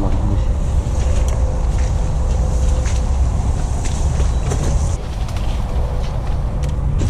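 Footsteps and rustling through dense brush and branches, with scattered sharp snaps and clicks, over a steady low rumble of wind and movement on the body-worn camera's microphone.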